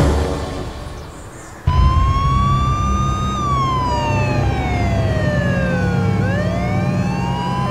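A music bed fades out. About two seconds in, an emergency-vehicle siren cuts in over a low steady rumble, wailing in slow glides: it rises, falls for about three seconds, then rises again near the end.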